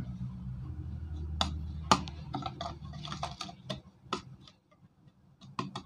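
Metal spoon clinking and scraping against a ceramic bowl: a run of light, irregular taps as seasoning is stirred, with a couple more clicks near the end.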